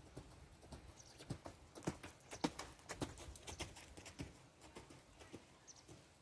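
Hoofbeats of a Swedish Warmblood mare cantering on the lunge over sand-and-gravel arena footing, a quiet run of dull thuds about every half second, loudest from about one to four seconds in and fading after.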